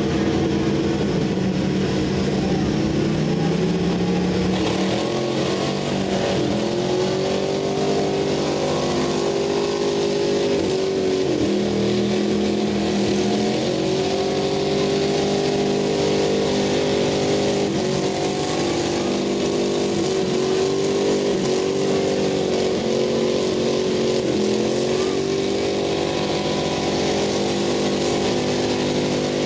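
Two pickup truck engines running at full throttle in a truck tug of war. The revs climb over the first few seconds, then hold high, dipping and recovering again and again as the trucks strain against each other with their wheels spinning in the dirt.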